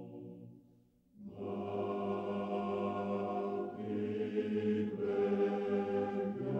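Slow, chant-like choral background music in long held chords. It fades almost to nothing just under a second in, then a new chord swells in and the harmony changes every second or so.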